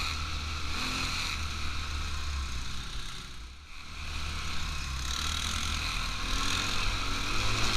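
ATV (quad bike) engine running during a ride, with a steady hiss over it. The sound dips briefly about three and a half seconds in.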